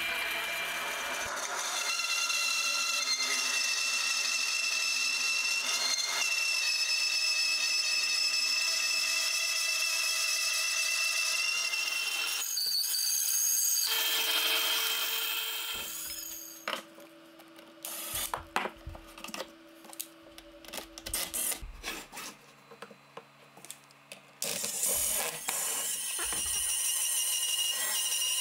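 Bandsaw running and cutting through a pine blank for a cabriole leg: a steady, high machine whine over the blade's rasping cut. About 16 s in the loud cutting drops away, leaving quieter knocks and clicks as the wood is handled. The saw then cuts again for the last few seconds.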